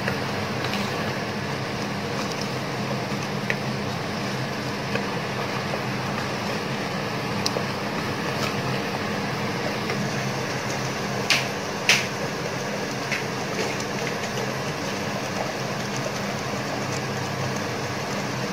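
Steady hum of an induction cooktop's cooling fan, with chicken masala frying in a pressure cooker and a wooden spatula stirring it. Two sharp knocks of the spatula against the pot come a little past the middle.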